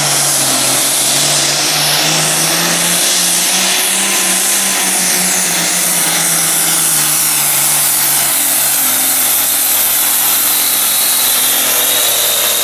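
Turbocharged diesel engine of a Ford Pro Farm pulling tractor running at full power under heavy load as it drags the weight sled. Its pitch sinks slowly as the pull goes on, with a thin high whistle above it.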